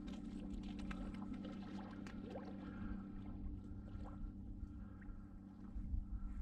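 Steady low motor hum holding two even tones, with scattered faint clicks over it.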